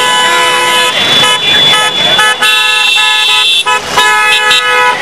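Several car horns honking together in long, overlapping blasts, with a brief break a little past the middle before they sound again.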